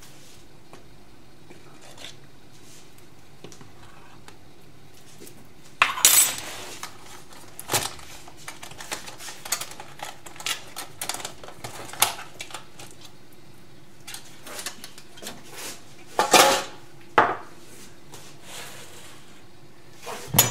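A metal spoon and a metal cake tin clinking and clattering as they are handled and set down on a countertop. The clatter comes in scattered knocks starting about six seconds in, the loudest ones around the middle and near the end.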